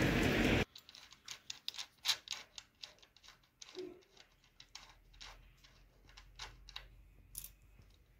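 A brief steady hiss cuts off abruptly, then come faint, irregular metal clicks and ticks, a few a second, as a spanner works the nut on a battery cut-off switch's terminal stud to tighten the cable lug.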